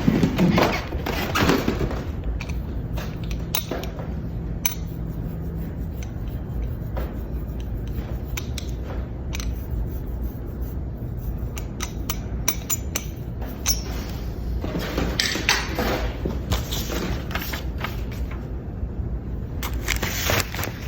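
Hand letterpress printing on an 1852 Washington iron hand press: scattered clicks, knocks and rubbing from working the press and inking, over a steady low hum.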